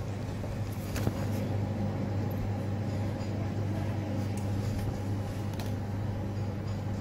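Steady low machine hum, with a sharp click about a second in and a few fainter ticks later.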